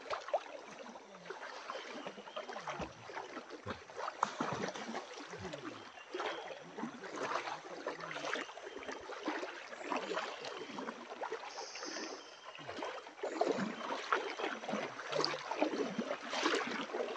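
Shallow river water splashing and trickling, with irregular splashes throughout.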